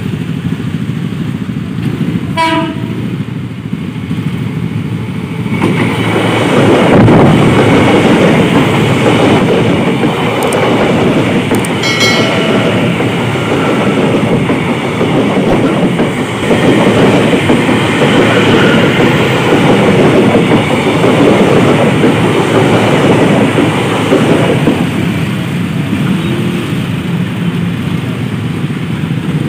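Electric commuter train (KRL) passing close by, its wheels clattering loudly on the rails from about five seconds in almost to the end. There is a short horn toot just before it arrives and another about twelve seconds in.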